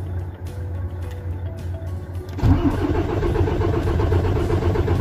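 MAN truck diesel engine cranking on the starter with its crankshaft position sensor disconnected, a dashboard warning chime beeping. About halfway through, the engine catches and runs loud and rough. The long crank before it fires is the sign of the ECU getting no crankshaft position signal.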